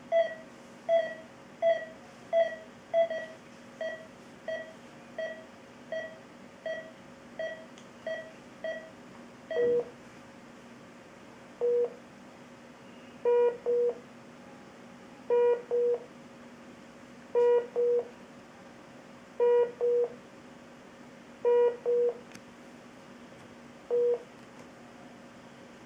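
Philips IntelliVue X2 patient monitors beeping the SpO2 pulse tone, a short beep about every 0.7 s, which stops after a click about ten seconds in. The monitor then sounds its technical alarm for the lost SpO2 reading: a lower double beep about every two seconds.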